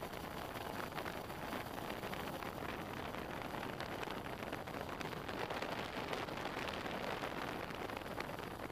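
Steady rushing, buffeting wind noise on the microphone of a camera carried on a small aircraft in flight.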